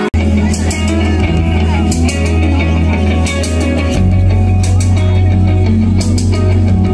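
Live rock band playing: electric guitar, bass and drums with cymbal crashes, heard loud from within the crowd. The sound cuts out for an instant at the very start, and the bass grows heavier about four seconds in.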